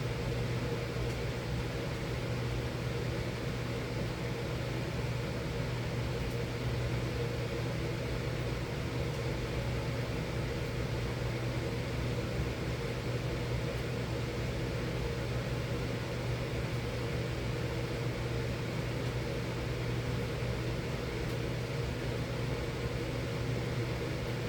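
Miller E3 furnace running steadily: a constant low hum with its blower's airy rush and a few faint steady tones, unchanging throughout.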